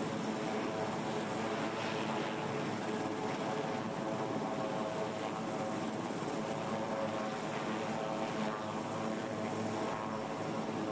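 Aircraft engines running with a steady, unbroken drone of several humming tones.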